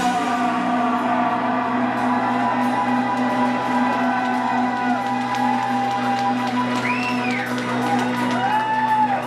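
Live rock band letting a chord ring on as a steady drone after the drums drop out. A few tones slide up and back down near the end.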